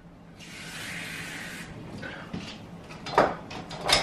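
Kitchen tap running for about a second as half a cup of water is measured, followed by two short knocks.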